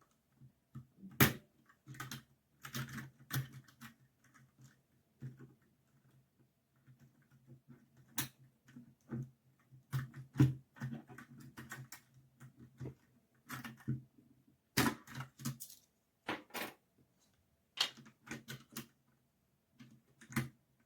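Typing on a 60% mechanical keyboard with red linear switches (Dierya DK61se): irregular runs of key clacks with short pauses, and a few louder single strikes.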